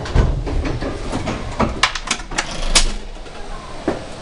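Commuter train coming to rest at an underground platform, its rumble dying away in the first second and a half. Then a quick series of sharp clunks and knocks as the sliding doors open and people step off, with one more knock near the end.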